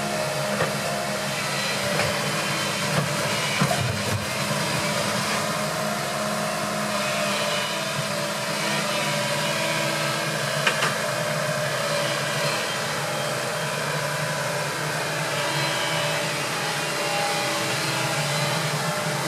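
Hitachi Zaxis compact excavator's diesel engine running steadily under hydraulic load as it digs and lifts soil, with a few short knocks, the sharpest about three and a half and eleven seconds in.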